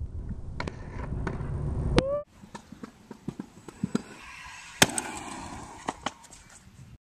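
Trick scooter clacking and banging on pavement in a string of sharp impacts: a loud smack about two seconds in followed by a brief rising squeal, then scattered clacks with the loudest near five seconds. Wind on the microphone rumbles through the first two seconds.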